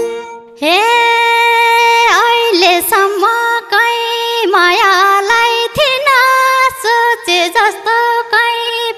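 Nepali dohori folk music: one high melody line with no drum under it. It holds a long note from about half a second in, then moves through short phrases with downward pitch bends.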